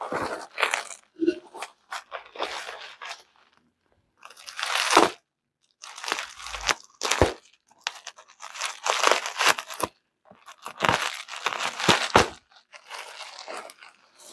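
Plastic bubble wrap around a package crinkling and crunching as it is handled, in irregular bursts with a few short pauses.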